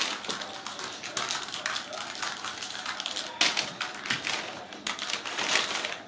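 Crumpled brown packing paper crinkling and rustling as kittens pounce on and play in it, in quick, irregular crackles, loudest about three and a half and five and a half seconds in.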